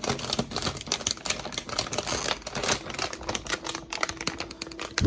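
Rapid, irregular clicking and crinkling of packaging being handled as a new graphics card is pulled out of its box.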